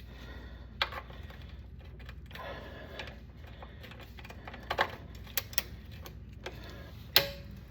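Scattered sharp metallic clicks and knocks of a socket wrench being worked on a tight oil drain plug, the loudest near the end.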